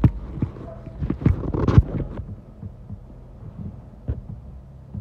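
Several sharp metal knocks and clunks from hand tools working in an open car engine bay, the loudest about two seconds in, over a low steady hum.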